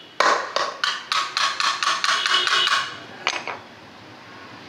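Rapid metallic taps, about a dozen at four to five a second, then two more a moment later. These are hammer strikes on the valve spring retainers of a D15 diesel cylinder head, seating the freshly fitted valve collets.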